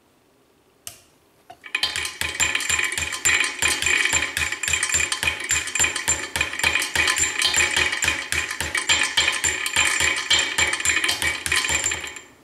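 Westinghouse second-generation hybrid railway level crossing bell ringing: its solenoid-driven striker hammers the metal gong several times a second, each strike ringing on. One strike comes about a second in, then the rapid steady ringing starts and runs until it cuts off near the end.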